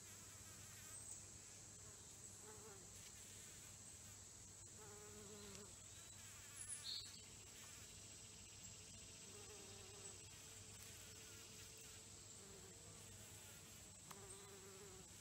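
Faint buzzing of a bee flying around flowers, coming and going in short passes over a steady high-pitched hum. A brief high chirp comes about halfway through.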